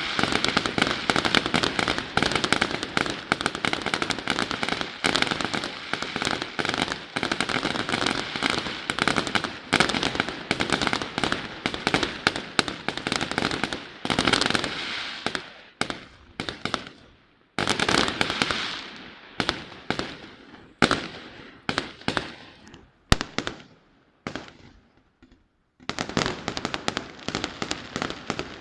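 Aerial fireworks display: a dense, rapid barrage of firework bangs and crackling that thins out about halfway through into separate reports, drops to a brief lull, then resumes as a dense barrage near the end.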